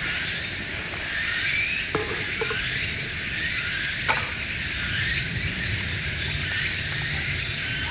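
Steady high-pitched insect chorus with short repeating chirps, and a couple of light clicks.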